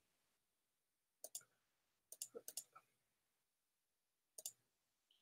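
Soft computer mouse clicks: a pair about a second in, a quick run of about five a little later, and another pair near the end.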